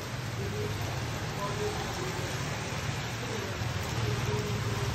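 Steady rain falling on a wet asphalt street, with a low motor hum underneath that gets louder near the end as a motorbike approaches.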